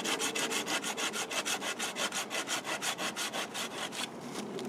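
Bahco Laplander folding saw cutting through a live green branch with quick back-and-forth strokes, about five a second. The strokes stop near the end.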